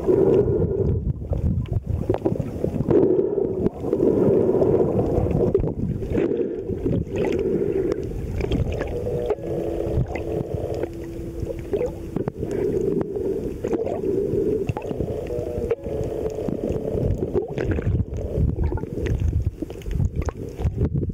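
Muffled underwater water noise picked up by a camera held by a swimmer: low churning and sloshing that surges unevenly, with a steady low hum for a couple of seconds about halfway through.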